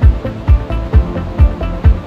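Background music with a steady kick-drum beat, a little over two beats a second, under sustained pitched notes.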